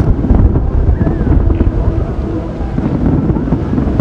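Distant aerial fireworks shells going off, a continuous low rumble of booms with a few sharp cracks, under wind buffeting the microphone.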